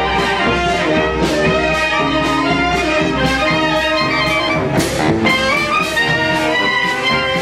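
Marching brass band playing a tune on the move: saxophones, trumpets and a sousaphone carrying the melody and bass, with regular bass drum strokes.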